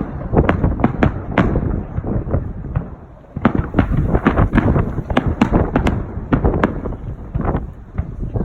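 Aerial fireworks bursting in a rapid barrage of sharp bangs, several a second, with a short lull about three seconds in.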